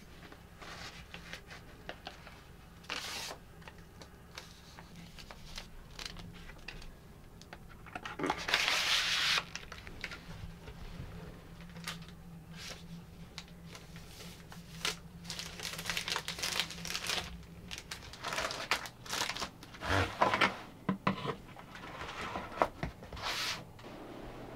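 Paper and a clear plastic sheet rustling and crinkling in irregular bursts as they are handled and folded, with one longer, louder rustle about eight seconds in and a run of short crinkles in the second half.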